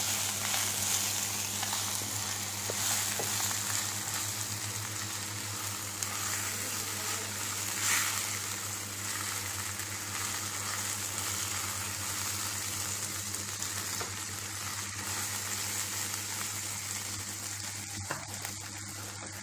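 Brinjal curry sizzling in oil in a pan as a spatula stirs it through: a steady frying hiss, with a steady low hum underneath.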